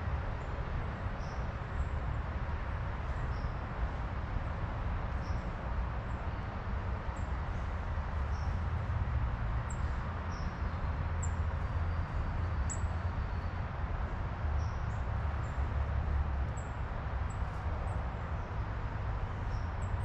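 Small birds giving short, high chirps, roughly one a second, some sliding in pitch, over a steady low rumble.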